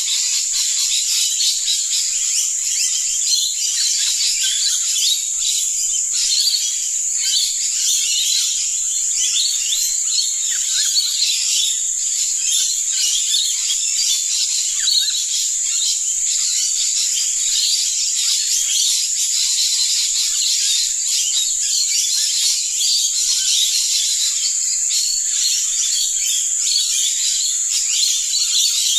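A dense chorus of many small birds chirping at once, with no pause, over a steady high-pitched drone.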